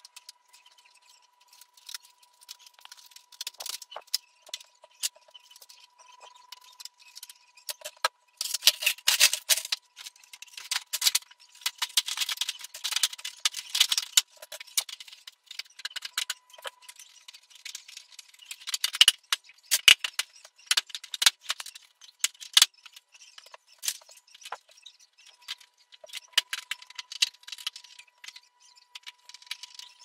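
Plastic casing of a split air conditioner's indoor unit being handled and fitted back on: irregular clicks, knocks and rattles, in dense flurries at times, as the panels are pushed and snapped into place.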